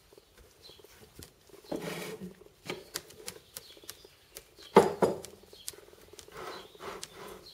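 Ostrich chick pecking: irregular sharp taps and clicks of its beak against hard surfaces, with a louder knock about five seconds in.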